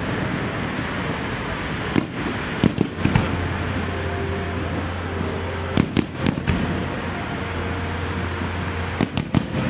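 Fireworks bursting: groups of sharp bangs about two seconds in, in the middle and near the end, over a steady rushing background. A steady low hum comes in about three seconds in.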